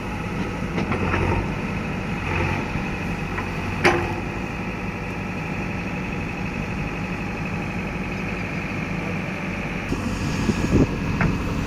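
Backhoe loader's diesel engine running steadily, with a single sharp metallic clank about four seconds in and a few knocks near the end.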